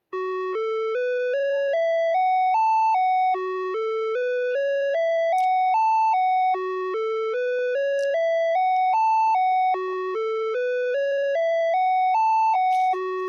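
Emergency-alert alarm tone played back: a clean electronic tone climbing a scale of about nine short notes over roughly three seconds, then dropping back to the bottom and starting again, about four times over.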